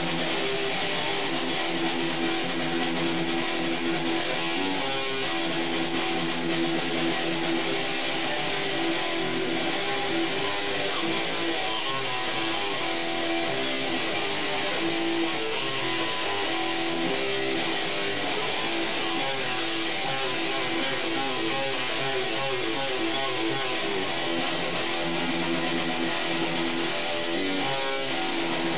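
Guitar music: strummed electric guitar chords, instrumental, at a steady level.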